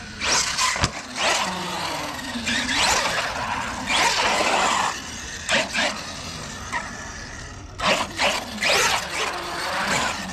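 Arrma Kraton EXB brushless RC truck driving on concrete in short bursts of throttle, its motor whine gliding up and down between loud spurts of tyre and drivetrain noise.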